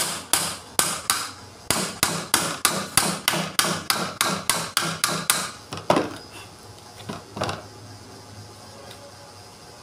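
Rapid hammer blows on the metal housing of a forklift alternator, about four to five strikes a second for roughly five seconds, then a few slower, separate blows before it stops.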